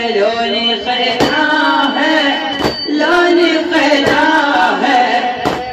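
A mullaya (woman mourning reciter) sings an Iraqi Shia latmiyya lament in Arabic in a rhythmic, repeating chant. A sharp beat falls about every second and a half, keeping time for the latm.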